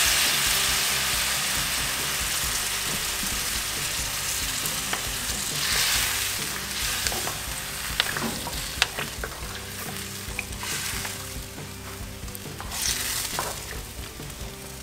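Stew sizzling in a hot cast-iron potjie pot over coals, the hiss fading gradually, while a wooden spoon stirs it and knocks against the sides of the pot now and then.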